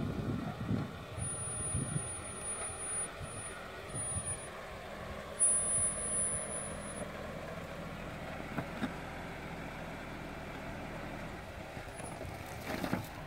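Jeep Wrangler engine running at low revs as the Jeep crawls slowly over rock ledges, with occasional knocks and crunches from the tyres and suspension on the rock. A faint, very high-pitched tone comes and goes during the first half.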